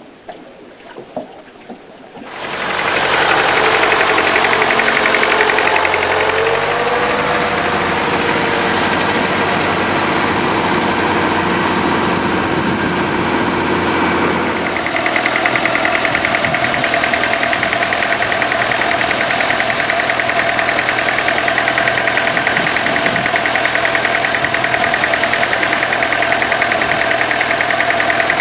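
Boat engine running loud and steady, coming in about two seconds in; its pitch rises around six seconds in, and about halfway through it settles into an even, finely pulsing drone.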